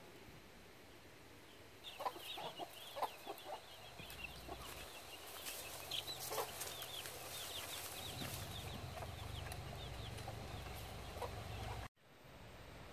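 Chickens clucking, with many short high chirping calls between about two and eight seconds in, over a low steady rumble. The sound cuts off abruptly near the end.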